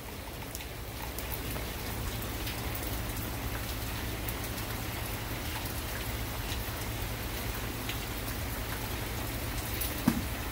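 Steady rain falling, with scattered drops ticking on a wet wooden deck. A brief thump near the end.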